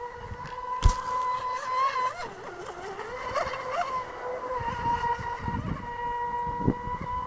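Motor of a stock Oxidean Dominator RC boat whining steadily, its pitch wavering and dipping for a couple of seconds in the middle. A sharp click about a second in is the loudest sound, and low rumbling joins in over the second half.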